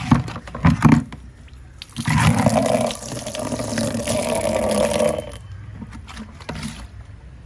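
Water pouring out in a rush for about three seconds, starting about two seconds in, after a few knocks in the first second.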